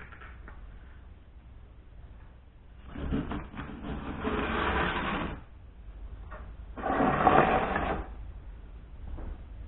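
Cardboard packaging being handled and slid off a tool: two stretches of rustling and scraping, the first about three seconds in lasting some two seconds, the second, louder and shorter, about seven seconds in.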